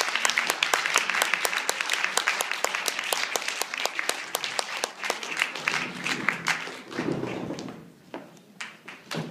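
Audience applauding, a dense patter of hand claps that thins out and dies away about six to seven seconds in.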